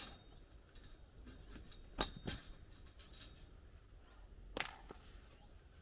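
Faint clinks and rattles of chicken-wire netting being taken down from the polytunnel's metal hoops, with a few sharp clicks, the clearest about two seconds in.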